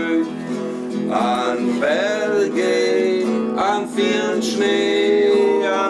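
Acoustic guitar strummed in steady chords while men sing a German folk song along with it.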